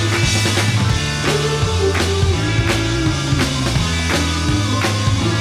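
Background rock music with a steady drum beat over a moving bass line.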